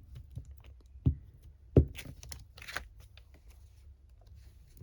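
Paper being handled while a strip is glued onto a card: short rustles and scattered light taps, with two soft thumps on the tabletop in the first two seconds.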